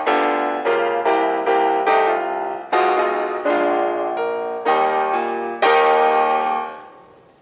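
Background piano music: a gentle tune of single notes and chords, each struck note ringing and decaying, fading away near the end.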